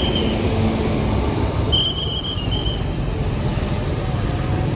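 Steady low rumble of idling bus engines and traffic. A short, high, thin tone sounds just at the start and again in two quick parts about two seconds in.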